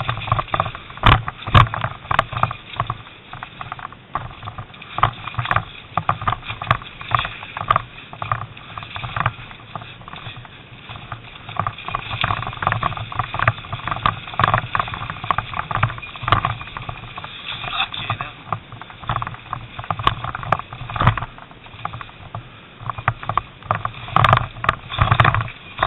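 Off-road motorcycle running along a rough, stony track, its engine noise broken by frequent irregular knocks and rattles from the bumpy ground.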